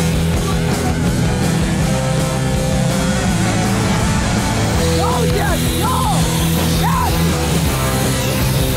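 Loud rock music playing, with pitched sliding notes over it in the second half.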